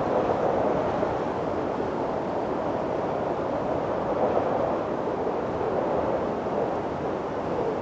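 Steady wind blowing: a continuous rushing noise that slowly swells and eases, with no sharp gusts or impacts.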